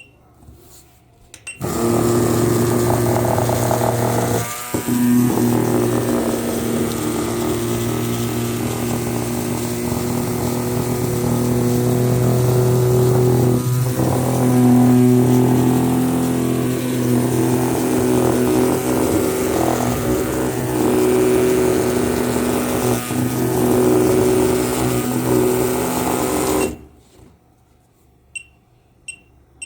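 A small electric motor in a toy running hard on high voltage: a steady loud buzzing whir with a rattle. It switches on abruptly about two seconds in and cuts off abruptly a few seconds before the end.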